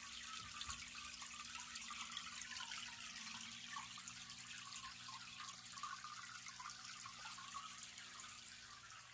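Faint trickling and splashing of water in a koi pond, stirred by a submerged pump, over a low steady hum.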